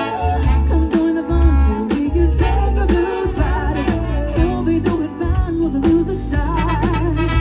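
Live band playing a song, with pitched melody lines over a heavy bass.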